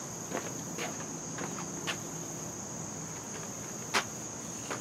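Crickets trilling as a steady, unbroken high-pitched drone, with a few faint clicks, the clearest near the end.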